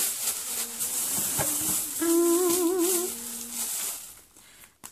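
A woman humming a few notes, with a wavering pitch about two seconds in, over a rustling of handled items and packaging.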